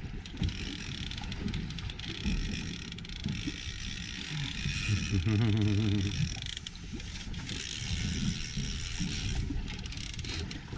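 A fishing reel being cranked against a big striped bass on a hard-bent rod, over a steady motor hum and wind noise from the boat.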